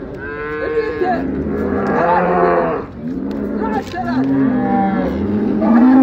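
Cattle mooing: several long, loud moos one after another, some overlapping.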